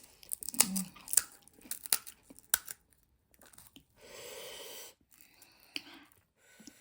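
Close-up crunching and chewing of crisp pani puri shells, sharp crackles in quick succession over the first few seconds. About four seconds in comes a steady rushing sound lasting about a second, then a few fainter crackles.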